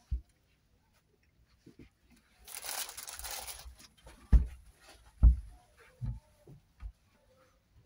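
Footsteps on a houseboat's floor: four low thuds a little under a second apart in the second half, two of them heavy. They follow a rustle about a second long.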